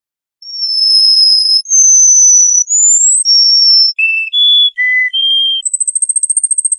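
A songbird singing a string of long, pure whistled notes, each held about a second at a different pitch, then shorter lower notes. Near the end it breaks into a rapid high trill of about eight notes a second.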